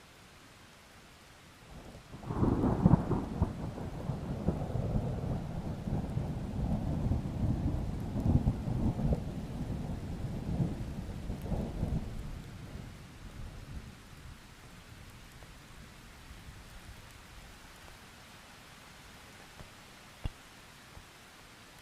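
Thunder: a sudden clap about two seconds in, then a long rolling rumble that fades away over the next ten seconds, over faint steady rain.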